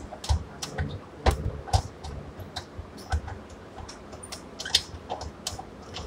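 Irregular sharp clicks and light knocks of a hand working the switches and glass door of a small switch compartment on a substation control and relay panel.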